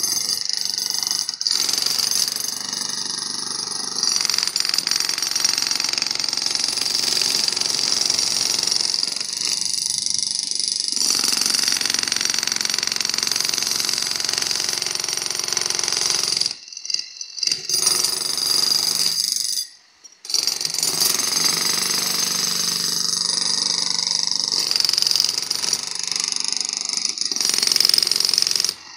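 Electric demolition hammers (breakers) running, their chisel bits chipping up old clay roof tiles. The hammering stops briefly twice, about two-thirds of the way through.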